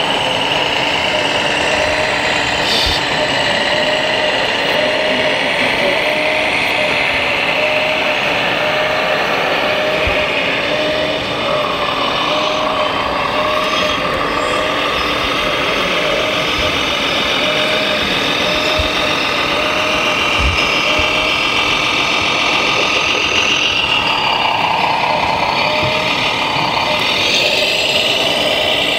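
Electronic sound modules of radio-controlled scale trucks playing a simulated diesel truck engine through small speakers, steady, over the noise of a busy exhibition hall.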